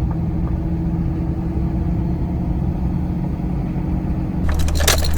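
Vehicle engine running with steady low rumble, heard from inside the cab. Near the end the hum gives way to a few sharp knocks and rattles.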